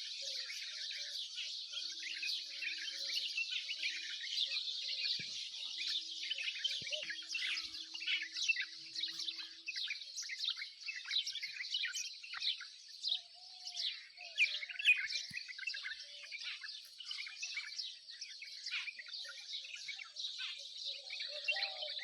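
Many birds chirping at once: a continuous, overlapping twitter of short high calls.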